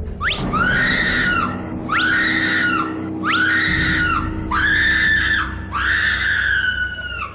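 A woman screaming in terror five times in a row, high-pitched, each scream about a second long and opening with a quick upward shriek; the last two are longer. She is frightened by a prank 'corpse' sitting up out of a coffin.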